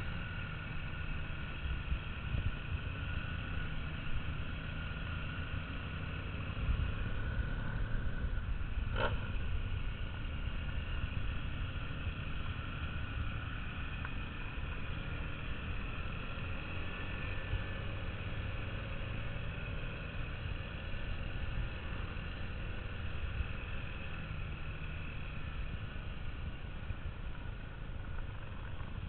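Motorcycle engine running steadily at low speed, heard from a camera mounted on the bike, with wind rumble on the microphone. A single sharp click about nine seconds in.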